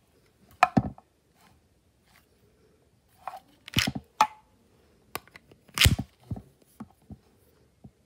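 LEGO bricks clacking as a brick-built toy pistol is handled and reloaded: a series of sharp plastic clicks and clacks, the loudest a double clack about a second in and another near six seconds.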